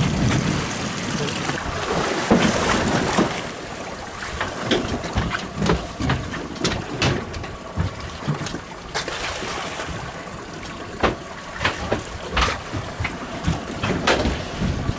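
Sea water lapping and slapping against a small boat's hull, with wind on the microphone and irregular short splashes. The sound is louder for the first few seconds, then settles.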